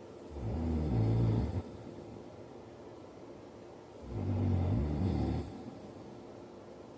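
A man snoring in his sleep: two low snores about four seconds apart, each about a second and a half long.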